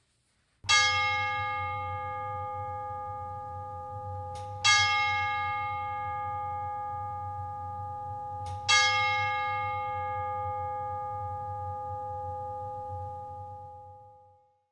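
A bell struck three times, about four seconds apart, each stroke ringing on and slowly fading. The last stroke dies away near the end.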